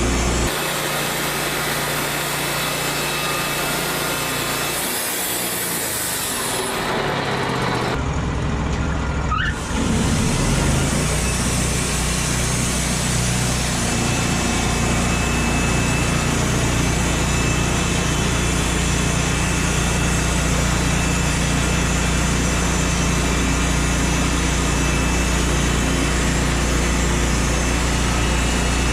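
Machinery engine running steadily, the sound changing abruptly a few times early on where the footage cuts between shots.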